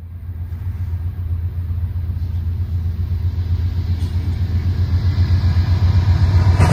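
Two GE C44-9W-type diesel-electric locomotives approaching at the head of a freight train, their engines a steady low rumble that slowly grows louder as they near.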